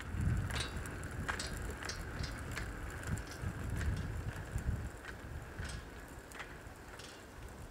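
Casters of a wheeled whiteboard rolling along a concrete sidewalk: a rumble with irregular clicks and rattles, fading as it is pushed away.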